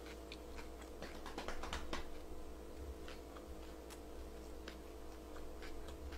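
Soft close-mouthed chewing of a dumpling: faint, scattered small wet clicks over a low steady hum.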